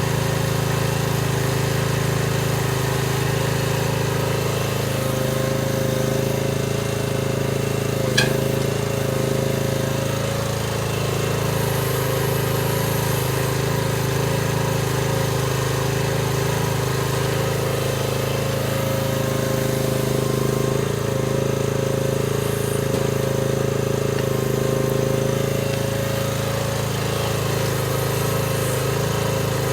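Chinese mini excavator's engine running steadily under load, with a steady whine over the engine drone. There is one sharp knock about eight seconds in.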